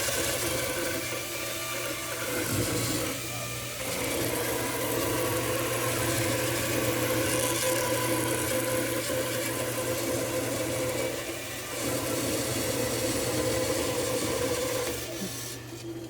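Bandsaw running and ripping a green log lengthwise, a steady motor hum under the noise of the blade cutting wood. The cutting noise dips briefly twice and eases off near the end.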